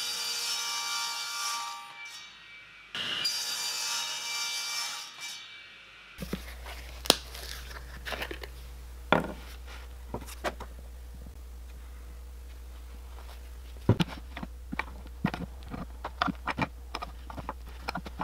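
Table saw cutting a small piece of wood in two passes, each whining cut lasting about two seconds. About six seconds in it gives way to scattered light clicks and taps of small wood blocks being glued and set in a C-clamp on a workbench.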